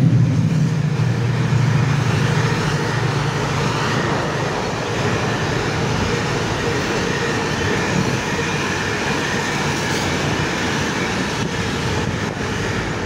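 Class 68 diesel-electric locomotive passing at speed with an intermodal container train. Its engine drone is strongest at the start and fades within the first few seconds. The container wagons then roll past in a steady, even rumble.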